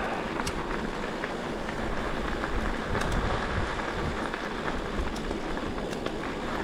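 Bicycle tyres rolling over a gravel and dirt trail: a steady gritty hiss sprinkled with small ticks of stones under the wheels.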